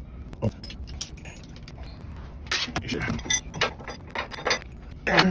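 Cordless impact driver fastening the bolt of a Sumo Springs bump-stop bracket: a series of short bursts and clicks rather than one long run.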